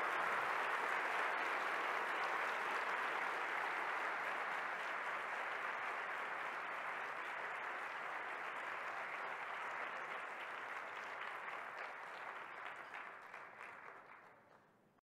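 Audience applauding, a dense steady clapping that slowly dies down and cuts off abruptly near the end.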